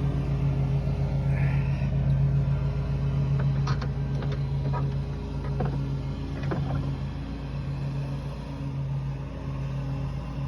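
A car engine running at a steady idle, with a few light clicks and knocks on top.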